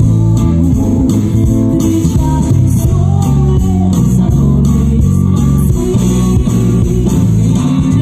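A live band playing a song: electric guitar, bass guitar and drum kit, with a woman singing into a microphone.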